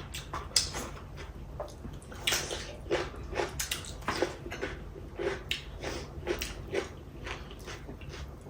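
Eating sounds close to the microphone: wet chewing and mouth smacks as a person eats chicken biryani, in irregular short clicks over a low steady hum.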